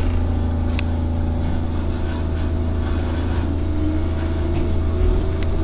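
Echizen Railway train running, heard from inside the car: a steady low rumble with a faint whine that rises in pitch partway through, and a couple of light ticks.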